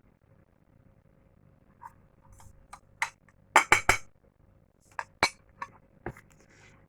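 Kitchen utensils clinking and knocking against a mixing bowl as dry cookie-dough ingredients are tipped in and combined. It is a scatter of sharp clinks, with a quick run of several in the middle.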